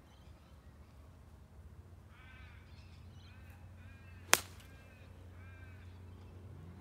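Sharp crack of a golf iron striking the ball on a half-swing low punch shot, once, about four seconds in; it is by far the loudest sound. A bird calls several times in short repeated bursts just before and just after the strike.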